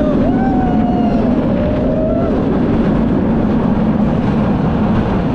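Steady loud rush of wind and track noise from a roller coaster train in motion, heard at an action camera worn on a rider's wrist. Over it a rider lets out one long, wavering "ooh" during the first two seconds.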